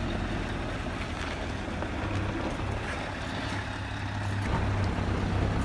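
Scania R730 truck's 16.4-litre turbocharged V8 diesel running steadily with a deep hum, growing a little louder near the end.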